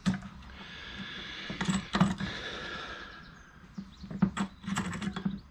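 Hand-turned brake caliper piston rewind tool: its threaded steel rod being worked by hand against the caliper, giving light metallic clicks and rattles, with a run of sharp clicks about four seconds in.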